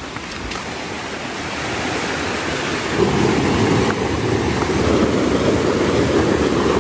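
Rushing water of a small rocky stream pouring over stones, growing louder over the first three seconds and then steady.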